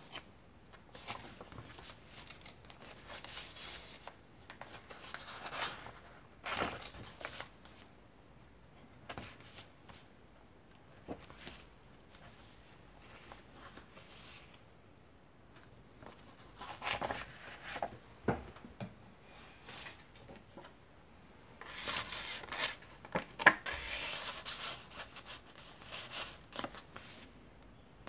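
Vintage paper pages and tucked tags of a handmade layered junk journal rustling as they are turned and lifted by hand, in irregular soft swishes, with a louder flurry of sharp crackles about three-quarters of the way through.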